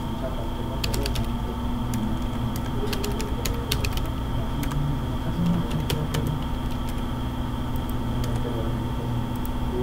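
Computer keyboard typing in short, irregular runs of clicks, over a steady low hum.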